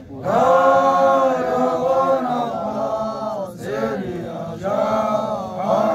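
A group of voices chanting a slow Xhosa song in long held notes, with a short break about halfway through before the next phrase.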